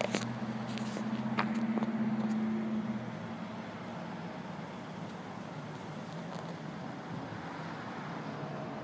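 Empty gondola train rolling through a road crossing: a steady rush of wheels on rail, with a low steady engine hum that fades about three seconds in.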